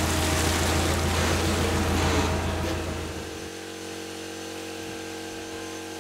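A workshop machine running with a steady low hum and a rushing noise, which shuts off about three and a half seconds in, leaving a fainter steady hum.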